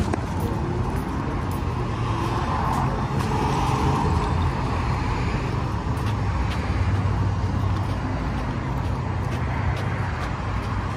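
Steady road-traffic noise: a low rumble with a hiss spread above it.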